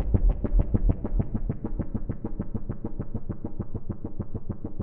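Roland MC-909 groovebox playing a fast arpeggiated synth pattern, about eight even notes a second. The deep bass underneath drops away about a second in.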